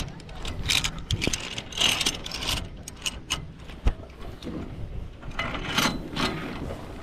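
Irregular metallic clicking and rattling of harness and zip-line gear, with a few sharp knocks.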